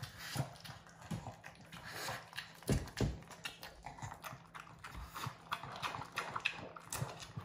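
A pug eating soft food from a raised bowl: quick, irregular chewing and smacking clicks.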